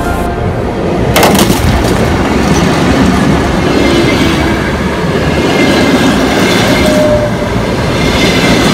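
A train passing over the track at close range. It comes in suddenly about a second in, then runs on as a steady, loud rumble of wheels rolling over the rail.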